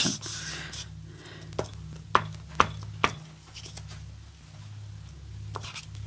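Glue stick rubbed over paper in short strokes, a soft scraping hiss, broken by several sharp clicks or taps, most between about one and a half and four seconds in. A steady low hum runs underneath.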